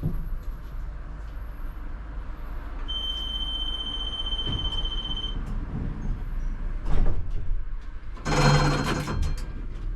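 ČKD Tatra T3R tram running, heard from the driver's cab: a steady low rumble, with a steady high beep lasting about two and a half seconds around three seconds in, a sharp knock about seven seconds in, and a louder rattling burst lasting about a second near the end.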